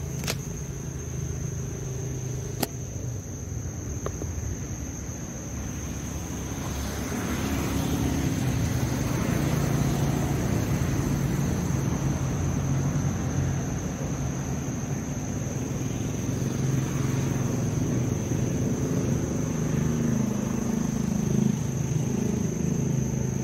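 Road traffic: a low vehicle rumble that swells about seven seconds in and then holds, over a steady high-pitched tone.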